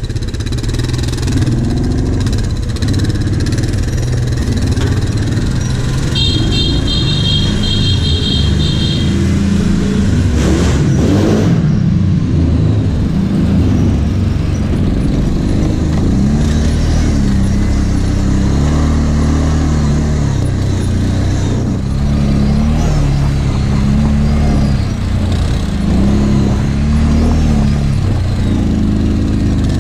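ATV engine running under load on a dirt trail, its revs rising and falling over and over as the rider throttles on and off.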